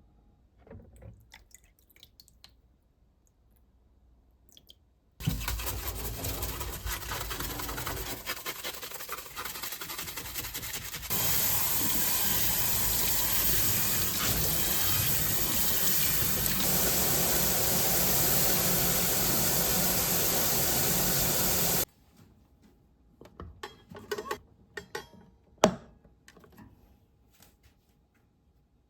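Water running from a tap. It starts about five seconds in, gets louder about six seconds later, and is shut off abruptly about twenty-two seconds in. Light clicks and knocks come before and after.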